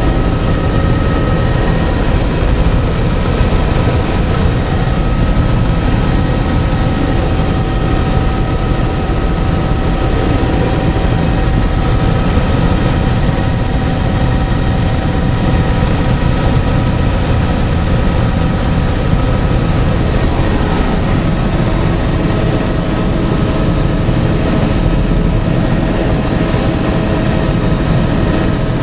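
Helicopter cabin noise in flight: the engine and rotor drone loud and steady, with a constant high-pitched whine over it.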